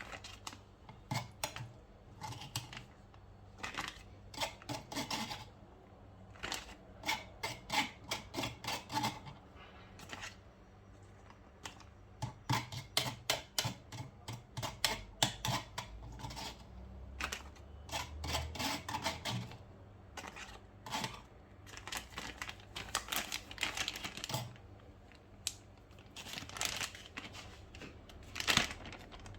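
Irregular runs of light taps and clicks from hand food preparation, such as a knife on a cutting board or utensils being handled.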